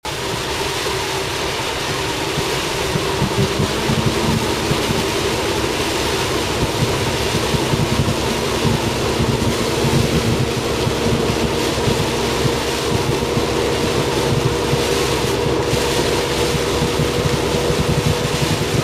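Typhoon storm noise: heavy rain and strong wind buffeting the microphone in a dense, steady rush. A steady droning hum joins in about three seconds in.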